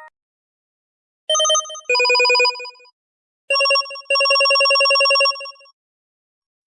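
LG KG280 mobile phone ringtone: a telephone-style ring played twice. Each ring is a short note followed by a longer, fast-warbling tone.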